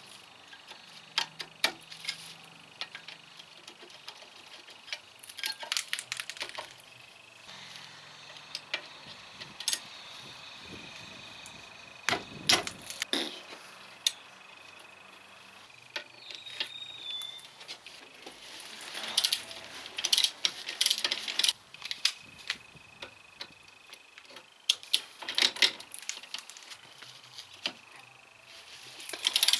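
Metal hand tools and brake parts clinking, clicking and scraping as the front brake pads are worked free of the caliper, in scattered bursts with busier clusters of clinks a third of the way in and again about two thirds of the way in.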